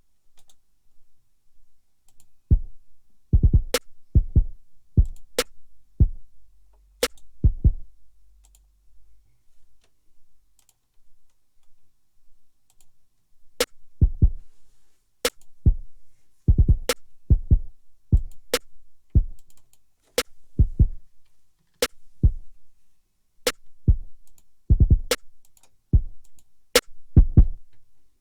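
Drum machine beat played back in Native Instruments Maschine: deep kick drum hits in an uneven pattern, under sharp, crisp snare hits. It stops for about five seconds partway through, then starts again.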